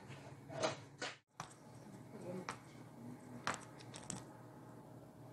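A few light clicks and knocks, about six of them over the first four seconds, from plates being handled on a kitchen countertop and the camera being moved.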